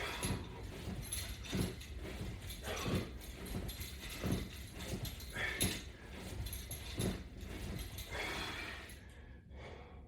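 A man's short, forceful breaths in time with crunch repetitions against resistance straps, about one every second and a half.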